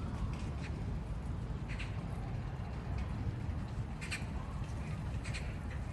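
Wind buffeting the microphone in a steady low rumble, with short bird chirps breaking through a few times.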